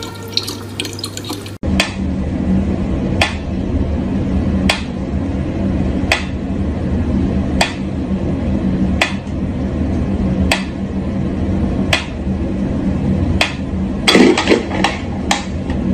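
Tap water running briefly, then a pyramid-shaped pendulum metronome ticking slowly, about one tick every second and a half, over a low steady hum. Near the end a few quicker clicks and knocks come as a cat paws at the metronome.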